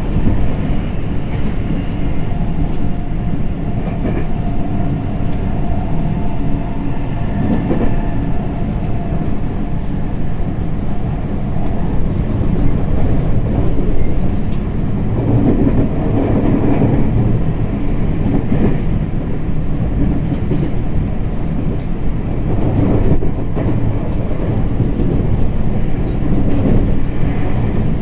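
JR West 225-5100 series electric train running along the line: a continuous rumble of wheels on rail that swells and eases at times. In the first several seconds a steady motor tone sits over it and then fades out.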